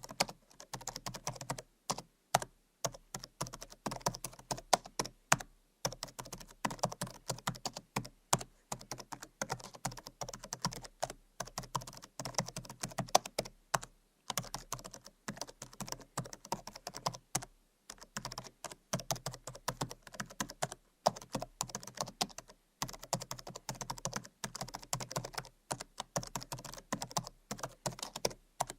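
Typing on a laptop keyboard: quick runs of key clicks in bursts, with short pauses between them and a few louder strokes.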